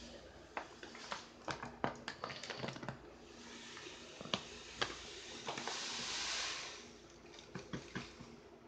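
Granulated sugar pouring from a bag into a plastic container: a hissing trickle that builds from about three seconds in, is loudest a little past the middle and fades away, over and among rustles of the bag and small knocks.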